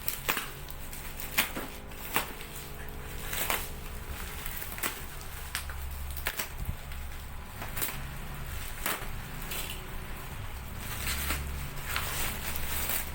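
Packaging being handled and opened: irregular sharp clicks and crinkles about once a second, over a low steady hum.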